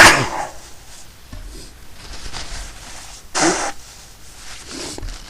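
A person sneezing: a loud, sudden sneeze right at the start that dies away within half a second, then a shorter sharp burst of breath about three and a half seconds in.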